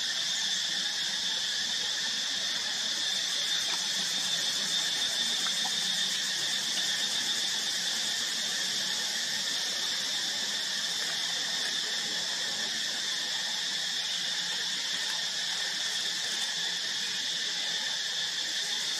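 Steady, high-pitched insect chorus that drones on without a break or change in pitch.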